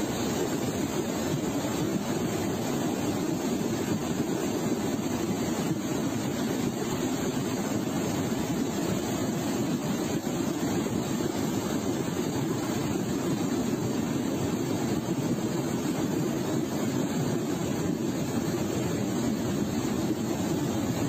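Muddy floodwater rushing down a street as a steady torrent.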